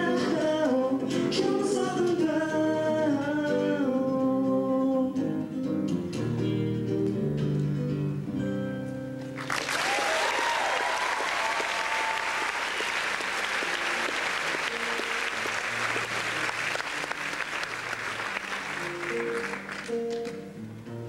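Male voice singing over a strummed acoustic guitar as a song ends; about nine seconds in, the audience breaks into applause and cheering that lasts about ten seconds, and the acoustic guitar starts playing again near the end.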